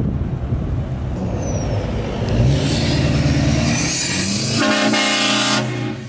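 A Duramax diesel pickup drives past, and about a second before the end it sounds a short blast of its onboard-air train horns, a loud chord lasting about a second that cuts off suddenly.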